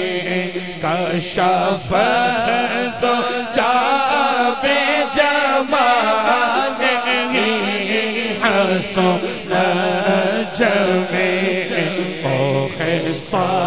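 Naat recitation: a man's voice sings a devotional Urdu kalam through a microphone and PA, in long wavering, ornamented lines over a steady low drone.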